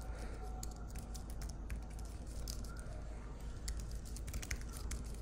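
Typing on a computer keyboard: irregular, quick key clicks, over a steady low hum.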